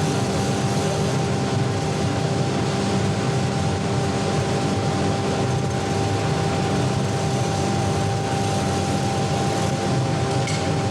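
Steady mechanical drone with a constant hum running through it.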